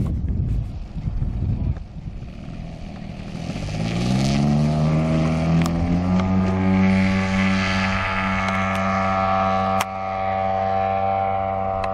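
Radio-controlled tow plane's engine opened up to full throttle for an aerotow takeoff with a model glider. Its pitch rises steeply from about three and a half seconds in, then holds steady at full power, after a low rumble in the first couple of seconds.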